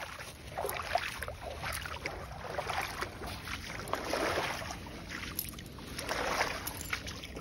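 Small Lake Superior waves washing in over a pebble shore, about four soft swells of wash with a faint clatter of stones, over a low steady rumble.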